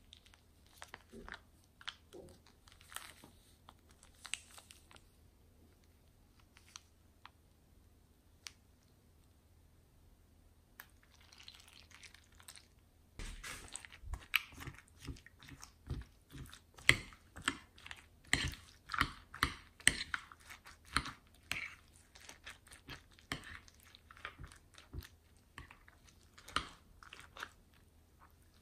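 Polystyrene foam beads crunching and crackling: a few scattered soft crackles at first as the beads are squeezed out of a piping bag, then, about halfway through, a dense, louder run of crunching clicks as a metal spatula stirs and presses the beads into clear slime.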